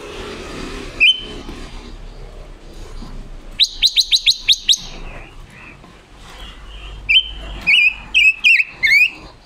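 Caged silver-eared mesia singing: a single short note about a second in, then a quick run of about seven sharp notes, then a string of warbling phrases over the last couple of seconds.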